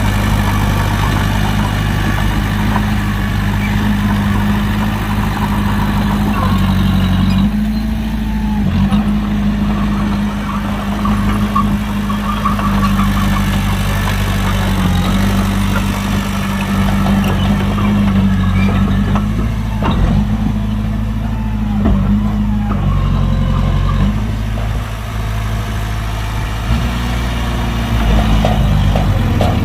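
Heavy diesel engine of earthmoving equipment running steadily, its speed dipping and coming back up a few times.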